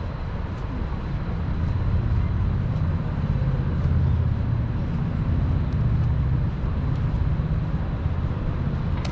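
Street traffic: a low motor-vehicle engine rumble swells about two seconds in and holds, over general city street noise.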